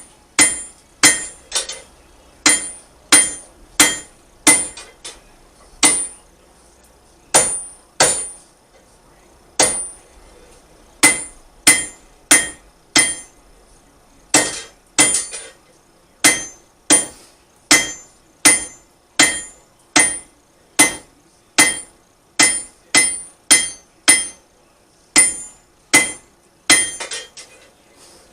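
Hand forging: a hammer striking hot iron on an anvil, a steady run of blows about one or two a second with a few short pauses. Each blow has a bright metallic ring.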